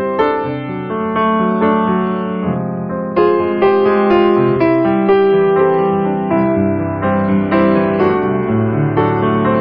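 Background piano music: a melody of struck notes over held chords.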